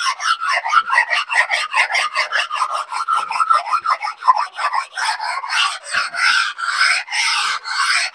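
Rough sharpening stone rubbed back and forth by hand over the oiled cast-iron table of a Bridgeport milling machine, stoning off burrs: a rasping scrape in quick short strokes, about four or five a second, changing to longer, slower strokes about five seconds in.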